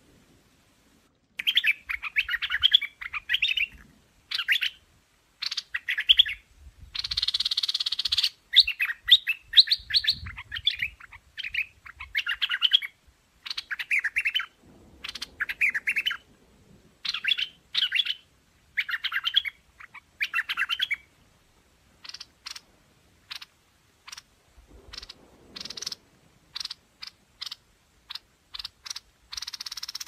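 Streak-eared bulbul singing: bursts of rapid chirping phrases, each about a second long with short gaps between them, and one harsher, noisier phrase about seven seconds in. After about twenty seconds the song gives way to a run of short, sharp ticks about twice a second.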